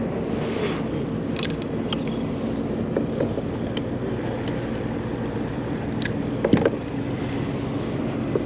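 A steady motor hum with wind noise, broken by a few sharp clicks and a louder knock about six and a half seconds in.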